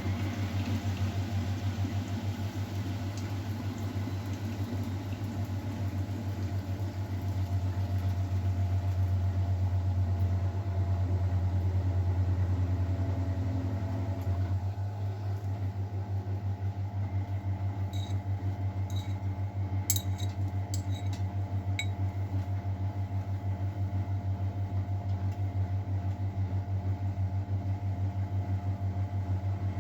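Miele Novotronic W912 washing machine running, a steady motor hum with the drum working. The sound shifts about halfway through, and a few sharp clicks follow a few seconds later.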